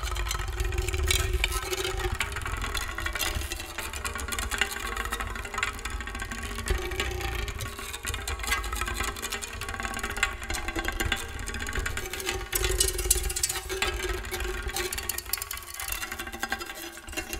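Experimental percussion: thin upright sticks worked rapidly against ceramic and paper-covered objects and small drums, giving a dense, fast rattling and grinding texture over a steady low rumble.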